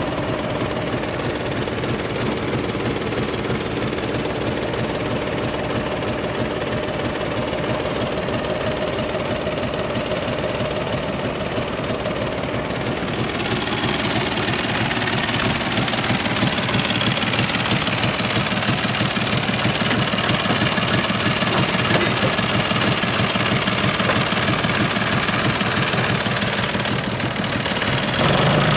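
John Deere 5200 tractor's three-cylinder diesel engine running steadily at idle. It gets somewhat louder and brighter about halfway through.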